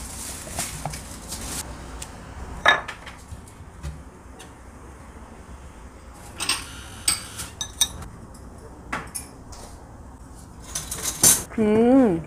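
Boska cheese knife clinking and scraping against a plastic food tub and a ceramic saucer as butter is scooped and spread on bread, with a handful of sharp clicks spread through; the tub's plastic lid is handled first. Just before the end someone hums an appreciative "mm".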